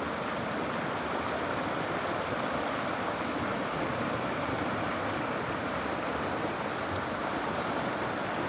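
Steady rush of river current flowing over rocks.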